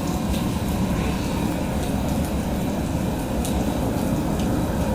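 Steady low roar of strong storm wind, with a few faint ticks.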